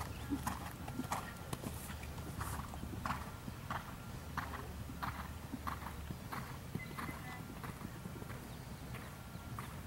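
A horse's hooves beating on the sand footing of a jumping arena in a steady rhythm, about one and a half beats a second.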